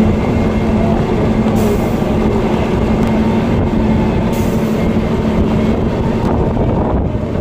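Inside the cab of a moving diesel goods truck: steady engine drone and road rumble at highway speed, with two brief hisses about a second and a half and four and a half seconds in.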